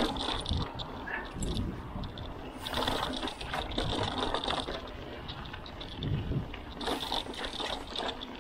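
Mountain bike being ridden along a forest trail: tyres running over the dirt, with the chain and bike rattling and clicking over bumps and a steady low rumble of wind on the microphone.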